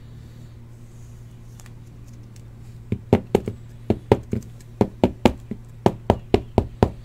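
A rigid plastic toploader being tapped on the tabletop to seat a trading card inside it. A quick run of about fifteen sharp knocks, about four a second, starts about three seconds in, over a steady low hum.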